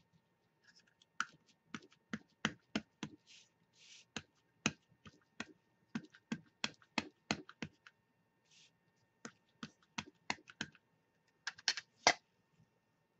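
Ink pad dabbed again and again onto a clear rubber stamp: sharp plastic taps, about two to three a second, with a brief pause a little after the middle and a few short rustles. The loudest taps come near the end.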